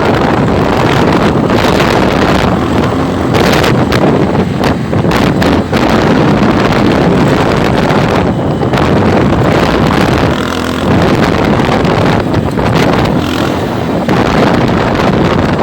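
Motorcycle engine running under heavy wind noise on the microphone, steady and loud throughout.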